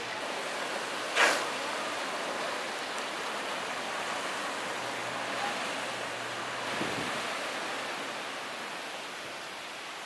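Steady rushing noise with one short, sharp click about a second in.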